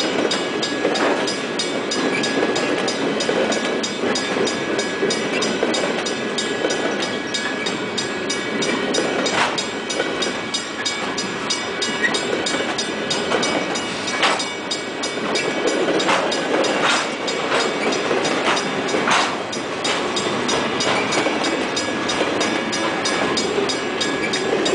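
Freight train of loaded flatcars rolling past, steel wheels clattering over the rails and the grade crossing, with sharp clanks now and then, most often in the second half. A steady ringing tone with regular strokes runs underneath, from the crossing signal's bell.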